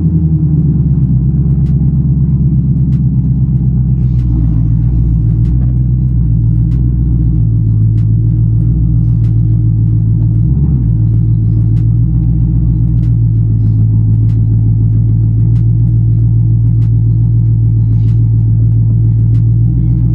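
Ford Mustang GT's 5.0-litre V8 running at low revs with a steady low drone, heard from inside the cabin as the car rolls slowly. Its pitch eases a little lower in the first couple of seconds, then holds.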